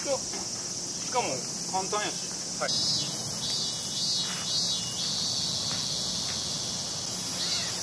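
A steady, high-pitched insect chorus. From about three seconds in, a pulsed insect call joins it, repeating about twice a second.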